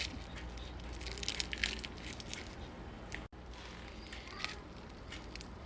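Roasted garlic cloves being squeezed out of their papery skins by hand, with faint crinkling and soft squishing and a few small clicks.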